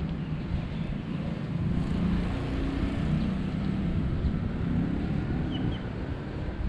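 Low, steady rumble of a motor vehicle engine passing, with wind on the microphone. Two short high chirps sound about five and a half seconds in.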